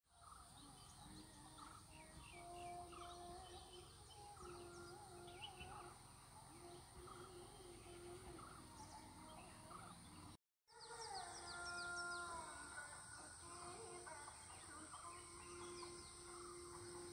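Faint outdoor ambience of several birds chirping and trilling over a steady high-pitched whine. The sound drops out for a moment about ten seconds in, then the birds continue.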